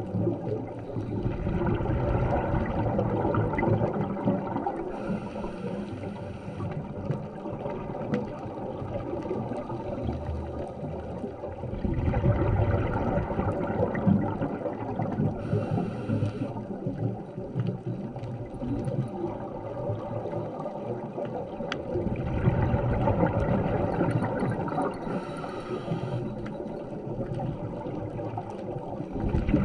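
Scuba regulator breathing, heard underwater through the camera housing. Exhaled air rises in bubbling rushes about every ten seconds, and a short high hiss of the regulator comes between them.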